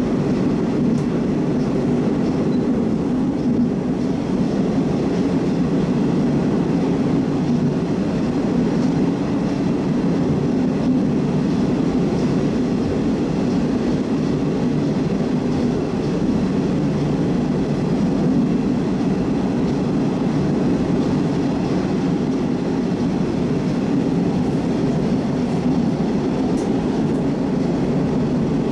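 Moscow metro Oka (81-760/761) train running at speed, heard from inside the car: a loud, steady rumble of wheels and running gear.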